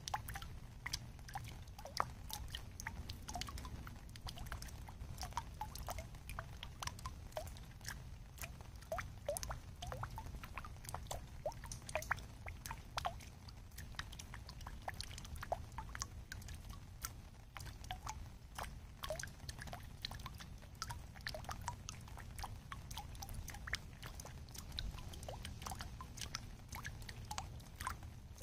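Raindrops dripping from a sunshade into a swimming pool, plinking and splashing irregularly several times a second, some drops with a short pitched 'plip', over a low steady rumble.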